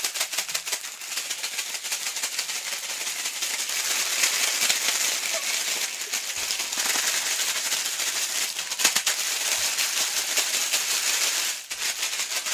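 Ice cubes and salt rattling inside a zip-top plastic bag, shaken fast and without let-up, a dense clatter with the plastic crinkling, with a short break near the end. The ice and salt are being shaken around a small bag of cream to freeze it into ice cream.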